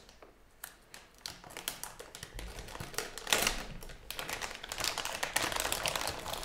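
Clear plastic wrapping around a graphics card crinkling and crackling as it is handled and pulled from the box, with many small sharp clicks and taps. Quiet for the first second or so, then busier from about three seconds in.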